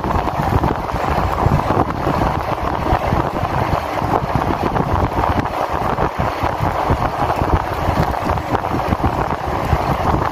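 Steady, loud wind noise buffeting the microphone of a handlebar-mounted phone on a bicycle moving at speed along an asphalt road.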